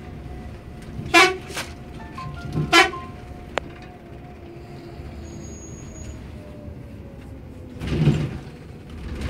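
Scania bus horn sounding in three short blasts in the first three seconds, over the steady engine and road rumble heard from inside the cab. A louder rushing burst comes about eight seconds in.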